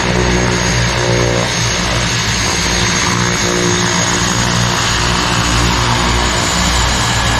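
Small propeller airplane's engines running loud and steady.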